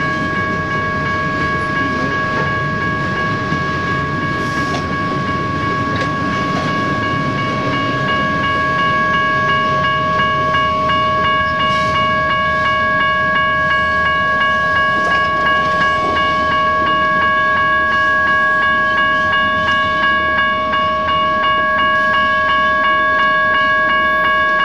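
BNSF freight train rolling past, its wheels clicking over the rail joints in an even rhythm that comes through clearly from about eight seconds in. A steady high ringing tone runs over the rumble throughout.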